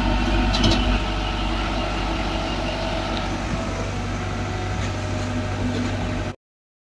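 Steady drone of machinery running, with a strong low hum and a few light clinks in the first second; the sound cuts off suddenly near the end.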